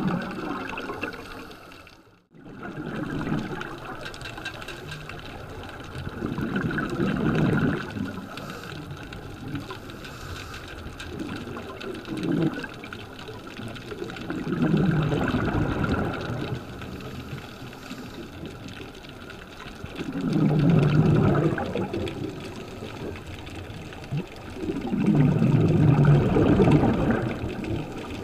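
Scuba exhaust bubbles from a regulator, heard underwater: a bubbling rush that swells with each exhaled breath, about every five to six seconds, and fades between breaths.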